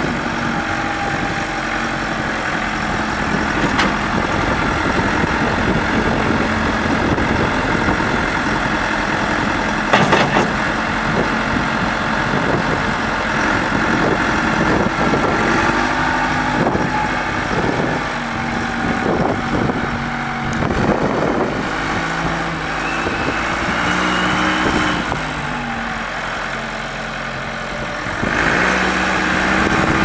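John Deere 310D backhoe loader's diesel engine running while the loader and hoe hydraulics are worked, its pitch stepping up and down with the load. A sharp clunk about ten seconds in, and a brief rising whine near the end.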